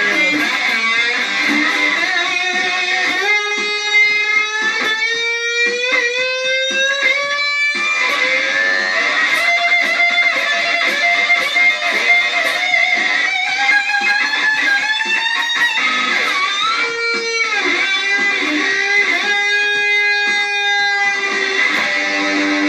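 Music: electric guitar playing notes that slide and bend up and down, with no bass.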